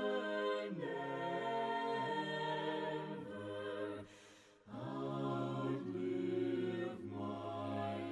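Voices singing a slow a cappella hymn in held chords that change every second or so, with a brief break about four seconds in.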